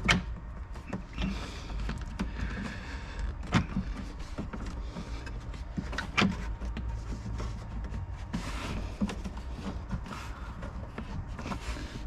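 Hands working at a McLaren's plastic interior trim and its retaining clips: rubbing and scraping of the trim, with a few sharp clicks about a second apart at first, then near 3.5 s and 6 s in.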